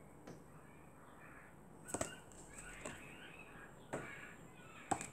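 Faint taps and clicks of stiff flashcards being handled and swapped, about one a second, over quiet room tone.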